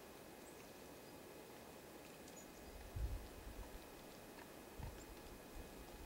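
Quiet outdoor ambience: a faint steady hiss, with a dull low thump about three seconds in and a smaller one near five seconds, and a few faint high ticks.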